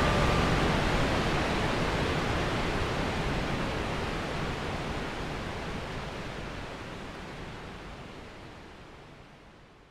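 Steady rushing roar of the Dettifoss waterfall, fading out slowly and evenly to nothing by the end.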